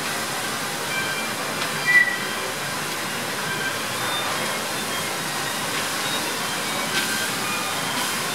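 Steady rushing of a wood fire burning in a grill firebox, with a few knocks and short metallic clinks as logs are fed in with tongs, the loudest about two seconds in.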